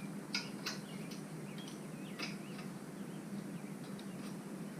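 Faint, scattered bird chirps over a steady low hum.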